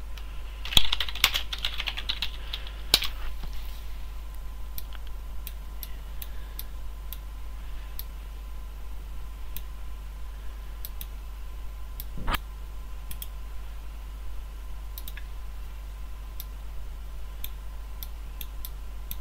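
Typing on a computer keyboard: a quick run of keystrokes in the first few seconds, then scattered single clicks, over a steady low electrical hum.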